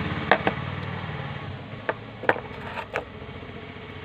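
Small plastic paint bottles being handled: several light clicks and taps as one is set down and another picked up, over a steady low hum that grows fainter partway through.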